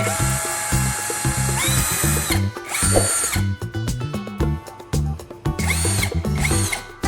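Electric motor whining as it runs: a long run that steps up in pitch twice, then two short bursts that rise and fall in pitch near the end. Background music with a steady beat runs underneath.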